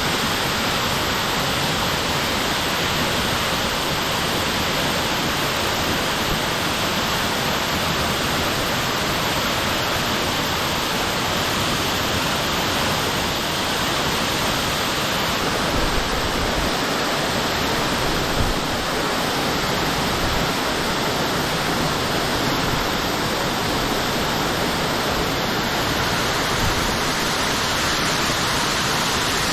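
Steady, even rush of a waterfall: water falling in a broad sheet down rock and crashing into the pool below.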